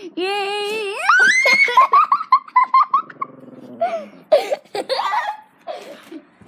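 A child's held vocal cry that swoops up in pitch about a second in and breaks into a quick run of high-pitched laughter, about five bursts a second, then trails off into breathless giggles.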